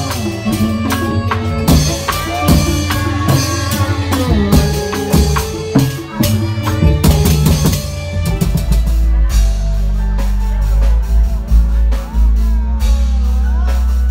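Live band music: a keyboard melody over drums. The drumming is busy at first, and from about eight seconds in a heavy, steady bass takes over with fewer drum strokes.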